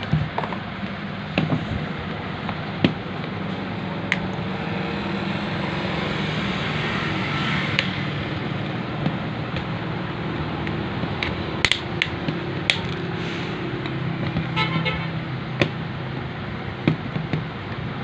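Scattered sharp plastic clicks and scrapes as a thin screwdriver pries at the seam of a Remington hair dryer's plastic housing to split the shell, over a steady background hum.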